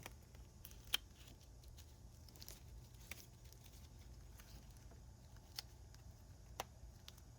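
Quiet room tone with a low steady hum and a few scattered sharp clicks, the loudest about a second in.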